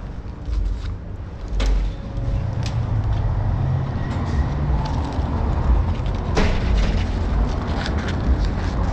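Uneven low rumble of wind buffeting a body-worn camera microphone outdoors, with a few sharp clicks and knocks, the clearest about a second and a half in and just past six seconds in.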